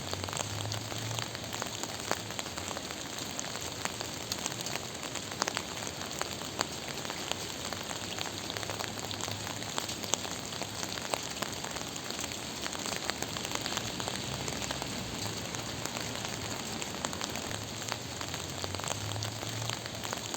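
Steady gentle rain falling on a surface, with many individual drops pattering in a continuous hiss.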